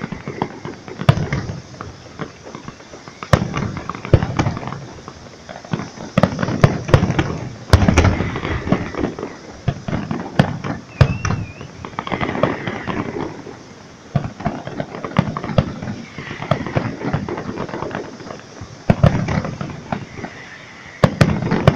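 Fireworks display: aerial shells going off in uneven clusters of sharp bangs and crackling bursts.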